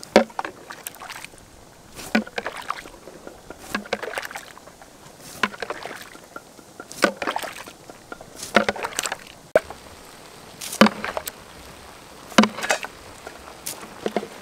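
A plastic scoop dips into a stainless steel strainer set in the rinse water of soaked rice in a wok, bailing the cloudy water out again and again. Each scoop gives a short knock and a slosh, repeating about every one and a half to two seconds. This is the washed rice being drained.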